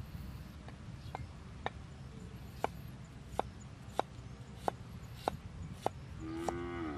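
Cleaver chopping leafy vegetable stems on a round wooden chopping board: about ten sharp chops, spaced roughly half a second to a second apart. Near the end a short pitched call sounds over the chops.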